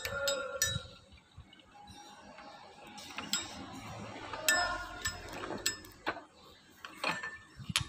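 Metal clinks and sharp taps as a steel socket driver is set on an alternator's large bearing and pressed into the end housing on a shop press. There are about half a dozen separate knocks, a few with a brief metallic ring.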